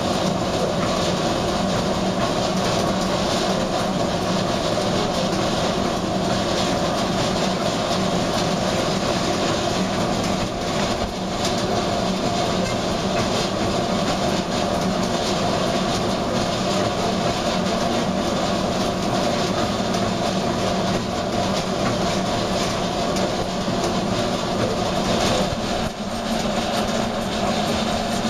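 Grape receiving hopper (conquet) with its screw auger turning, feeding destemmed red grapes: a steady mechanical running noise.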